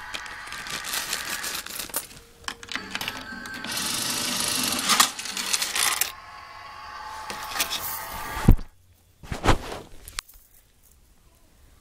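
Clattering and rustling of a toy mini claw machine being handled, with many small plastic clicks and two sharp knocks about a second apart near the end.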